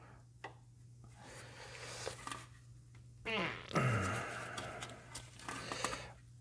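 A 14 mm wrench on a seized hydraulic fitting nut, with faint clicks and scraping of metal as the nut is strained against. About three seconds in comes a short strained grunt with a falling pitch.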